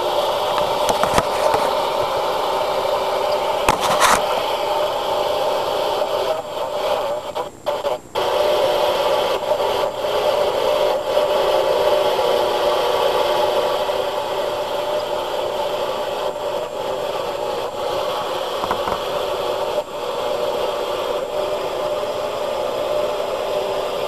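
Telephone line audio picked up by a modified Decatur RM-715 X-band doppler radar used as an eavesdropping receiver: a steady tone under heavy hiss, dipping out briefly about seven to eight seconds in.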